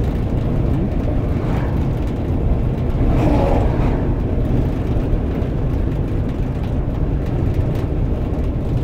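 Steady low rumble of a car's engine and tyres, heard from inside the cabin while it cruises along a highway.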